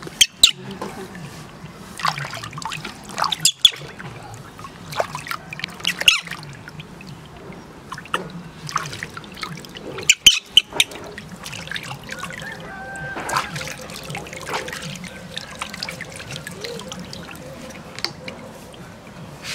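Bathwater in a plastic tub splashing and trickling as hands scoop and pour it over a baby monkey, with irregular sharp splashes.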